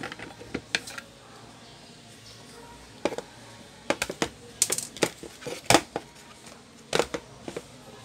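Hard plastic clicks and knocks from an air humidifier's plastic water bowl and base being handled and set against each other. They come as a scattered series of sharp knocks, with the sharpest about two-thirds of the way in.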